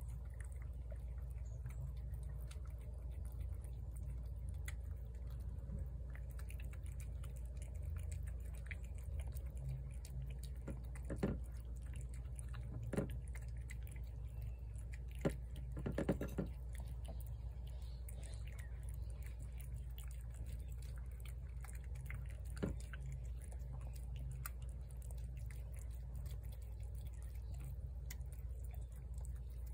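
Cats eating shredded chicken from plates, with soft chewing under a steady low rumble. A few short sharp clicks stand out around the middle.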